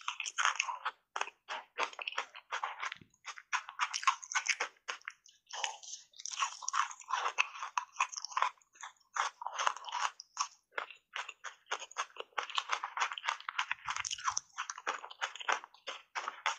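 Ice cubes thickly coated in matcha powder being bitten and chewed: a rapid, irregular run of crunches with brief pauses.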